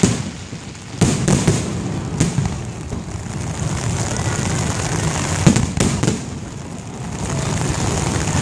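Aerial firework shells bursting: about five sharp bangs, the loudest just past the middle, over the continuous noise of the display.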